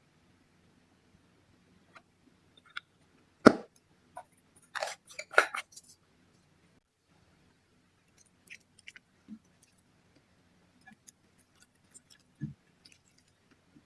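Slime being mixed and handled with its makeup colouring: scattered sticky clicks and small pops. The loudest is a sharp click about three and a half seconds in, followed by a quick cluster of them about five seconds in.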